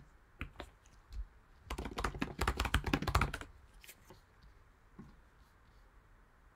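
Typing on a computer keyboard: a quick run of keystrokes lasting about a second and a half, with a few single clicks before and after.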